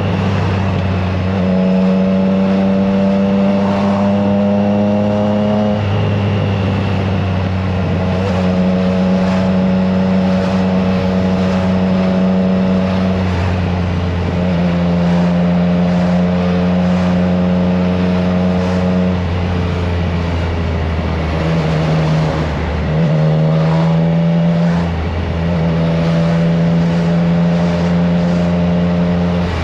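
Triumph Trident 660 inline three-cylinder engine running at a steady road speed through an aftermarket FireTong exhaust, with wind noise. The engine note holds for stretches of several seconds and shifts pitch several times, most sharply about 22 seconds in.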